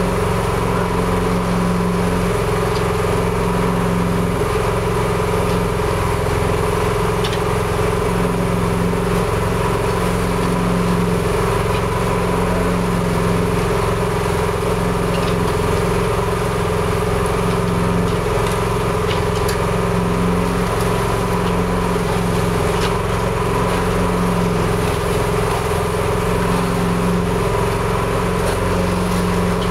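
A small engine running steadily at a constant speed, its steady drone unbroken throughout, with a few faint knocks and scrapes over it.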